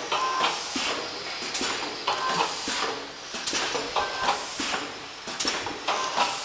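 Automatic triangle-bag snack packing machine running through its cycle: surges of air hiss and mechanical clacks repeating about every two seconds.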